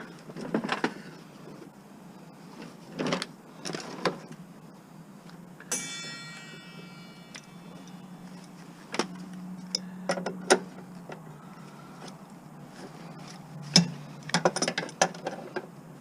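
Hand tools and metal parts handled while unbolting a gas lawn mower: scattered metallic clicks and knocks over a steady low hum, with one metal strike about six seconds in that rings for about a second and a half. A quick run of clicks comes near the end.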